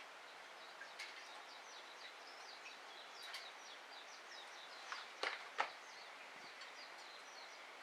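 Wood fire crackling in a Solo Stove, with scattered sharp pops, the two loudest close together about five seconds in. A small bird twitters steadily in the background.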